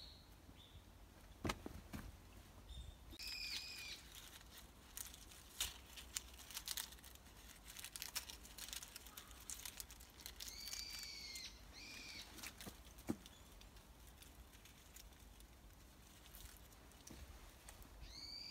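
A bird gives several short, arched calls, over soft scattered rustles and ticks of gloved hands working loose garden soil.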